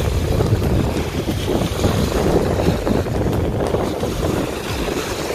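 Wind buffeting the microphone in a dense, uneven low rumble, with waves washing on a river shore beneath it.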